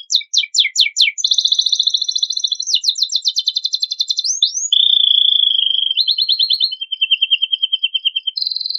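Canary singing a long, varied song. A handful of quick falling sweeps give way to fast rolling trills that change pitch every second or two, with a held warbling note about five seconds in, then more trills.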